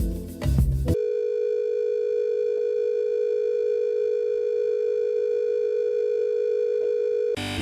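A single steady electronic tone, a broadcast-style test tone, held at one pitch for about six seconds and cutting off suddenly. Before it, elevator-style background music plays for about a second and stops abruptly.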